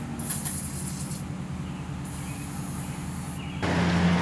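A steady low machine hum, with a louder rushing noise coming in about three and a half seconds in.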